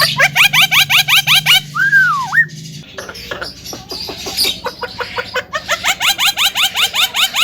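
Javan myna calling: a fast run of short rising chirps, about seven a second, broken by one drawn whistle that dips and rises, then a second run of chirps near the end. A low steady hum underneath stops about three seconds in.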